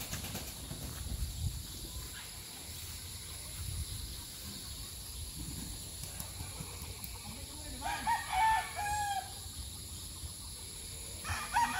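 A rooster crows once, a long call of several notes about eight seconds in, and another crow starts near the end. A low wind rumble runs underneath.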